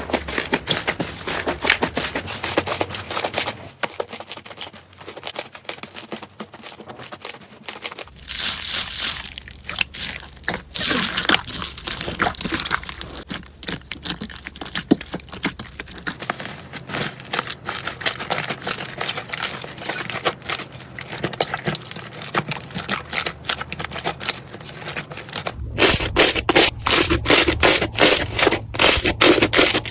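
Slime being squeezed, poked and stretched by hand, giving dense crackling and crinkling pops, with the texture changing every several seconds. Near the end comes a steady run of sharp crackles, about three a second.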